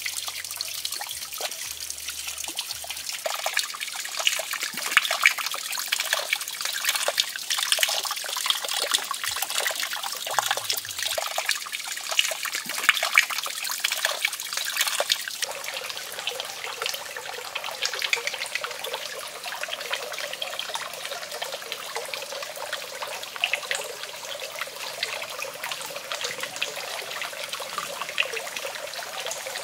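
Water trickling and splashing steadily into a shallow pool, with many small splashes, thicker in the first half.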